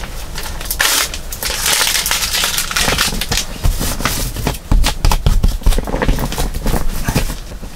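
Close rustling and crinkling of an air mattress and its bedding being handled, full of small crackles and clicks, with a few dull low thumps.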